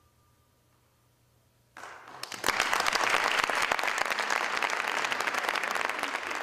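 A faint held high tone dies away, then after a brief hush an audience breaks into applause about two seconds in, clapping loudly and steadily.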